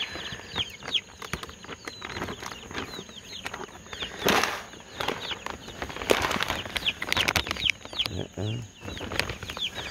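Chickens moving about in a coop: wings flapping in bursts about four seconds in and again around six to seven seconds, over many short, high, falling peeps.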